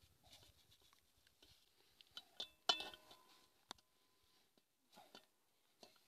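A few light metal clinks of a ladle against the cooking pot and its lid, the loudest near the middle and one a second later ringing briefly; otherwise near silence.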